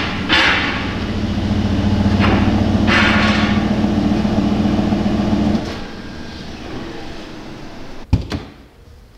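Aston Martin DBX engine running steadily with a few brief whooshes, then cutting off about five and a half seconds in. A single sharp thump comes near the end.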